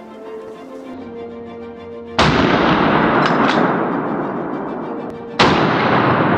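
Two hunting rifle shots about three seconds apart, each a sudden loud crack followed by a long fading echo, over background music.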